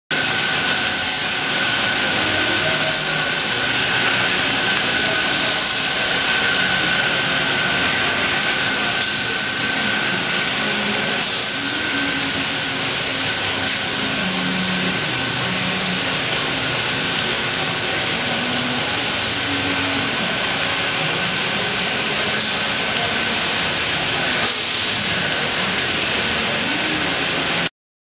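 Steady factory-floor noise in a large metal fabrication shop: machinery running as an even hiss and hum, with a steady high whine through the first half and a single knock near the end.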